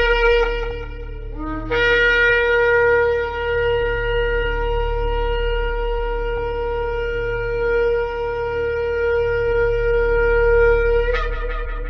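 Shofar (ram's horn) sounding long held blasts. One blast breaks off about a second in; after a brief low note a new blast holds one steady note for about nine seconds and flares brighter just before it ends. A low steady hum runs underneath.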